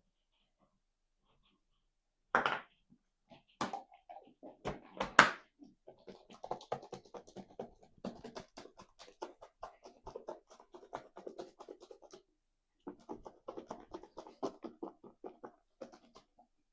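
Kitchen food-prep noises: a few separate knocks, then a long run of quick, even tapping strokes with a short break partway through.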